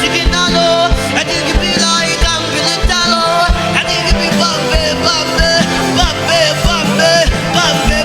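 Live gospel worship music: sustained chords over a steady kick-drum beat of about two thumps a second, with wavering vocal or instrumental lines above.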